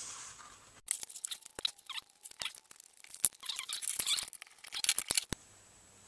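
The case of a BEME e-Rod curtain motor unit being pulled apart by hand: a run of sharp clicks, scrapes and squeaks as the housing slides off the motor tray, stopping abruptly near the end.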